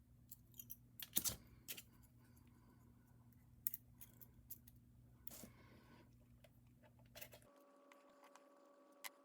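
Faint scattered clicks and light knocks of small objects being handled. About seven and a half seconds in, a faint steady hum begins.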